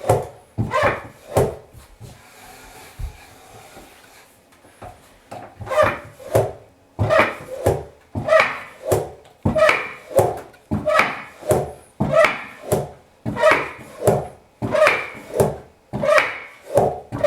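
Handmade wooden walking horse stepping along, its wooden parts knocking in a steady rhythm of about two knocks a second. The knocking stops for a couple of seconds about two seconds in, then resumes.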